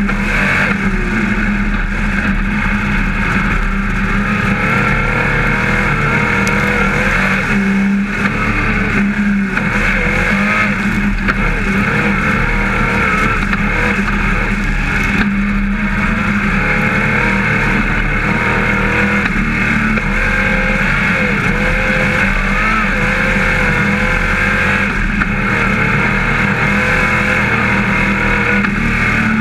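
Dirt-track modified race car's V8 engine running hard at racing speed. Its pitch rises and falls again and again as it revs up and backs off through the laps.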